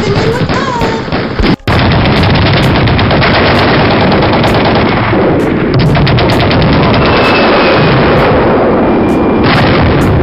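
Loud, sustained gunfire sound effect: rapid machine-gun-style shots packed densely together with heavy booms underneath. It breaks off for a split second about a second and a half in.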